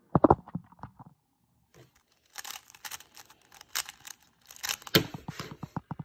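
Handling noises: a few light knocks, then rustling and scraping with sharper knocks, as a Rubik's cube is set down on a wooden table. The loudest knock comes about five seconds in.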